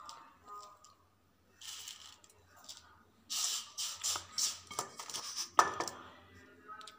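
Dry vermicelli being handled into a steel bowl: bursts of rustling and crackling, with short clicks and one sharp clink near the end.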